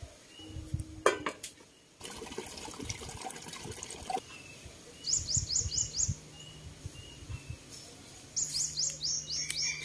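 A sharp knock about a second in, then water pouring from a spout for about two seconds. After that, birds chirping: two runs of about five quick falling chirps, with soft repeated high peeps between them.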